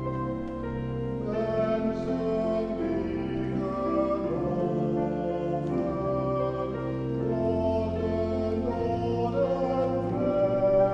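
Men's choir singing a hymn in parts, with a steady low bass line under the voices and an instrumental accompaniment. A held flute note ends right at the start, before the choir comes in.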